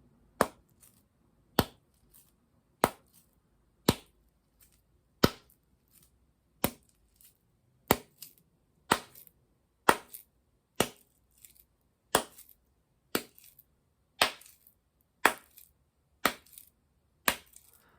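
Two unwrapped blocks of vegan butter slapped together again and again, about once a second, giving some sixteen sharp smacks. The blocks are very sticky, and some smacks are followed by a small tick as they pull apart.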